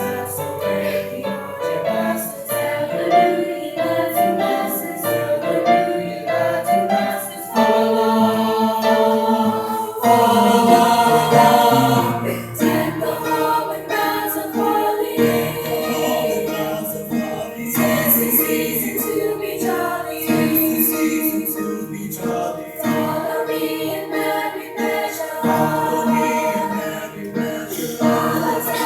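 A school chorus singing together, several voices in harmony.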